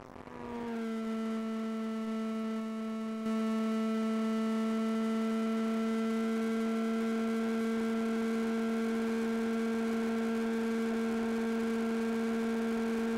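Skyhunter FPV plane's electric motor and propeller droning as one steady pitched tone with overtones. The pitch drops slightly about half a second in as the throttle comes back to cruise, then holds steady, and it gets a little louder about three seconds in.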